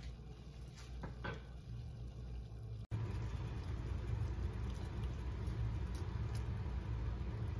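Soy-sauce liquid at a rolling boil in a stainless steel saucepan, a steady low bubbling rumble. It cuts out for an instant about three seconds in and comes back louder.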